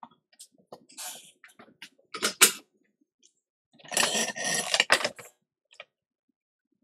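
Small tools being handled on a workbench: scattered light clicks and taps, a sharp louder clatter about two seconds in, and a rattling, scraping stretch lasting about a second near the middle.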